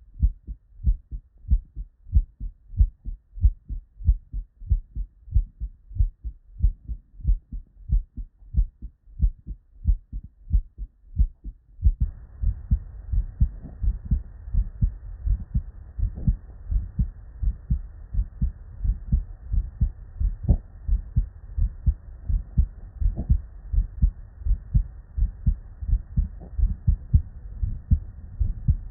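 Normal human heart sounds heard through a stethoscope: a steady, regular lub-dub of S1 and S2 with no added sounds. About twelve seconds in, a faint steady hiss comes up behind the beats.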